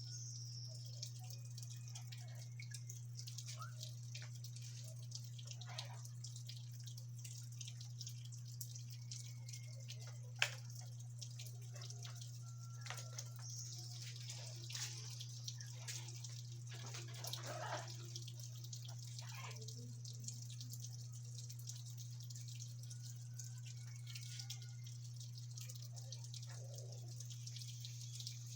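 Parrots making faint, scattered beak clicks and short soft chirps and whistles over a steady low hum, with one sharper click about ten seconds in.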